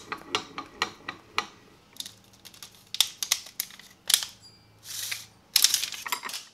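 Quick irregular clicks and light metal knocks as the aluminum quench plates and the stainless-foil-wrapped blade between them are handled. Two short rushing noises come near the end, the second the louder.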